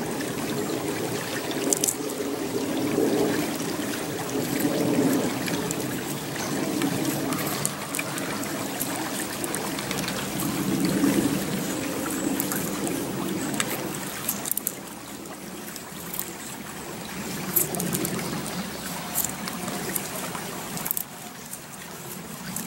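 Knife blade scraping down a peeled stick in repeated strokes, shaving feather-stick curls, over a steady rush of running water.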